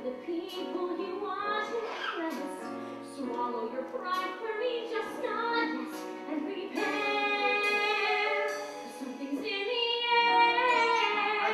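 A woman singing a musical-theatre song with instrumental accompaniment, with some long held notes.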